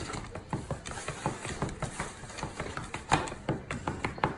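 A foam takeout container crackling and creaking under the hands as it is opened: a run of irregular small clicks.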